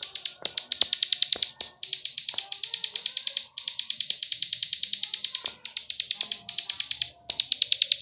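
Caged ciblek sawah (prinia) giving its rapid dry clicking call, about ten sharp ticks a second, in runs of one to two seconds with brief pauses between them.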